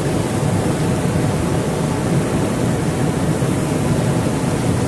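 Steady rush of flowing river water, a constant even noise.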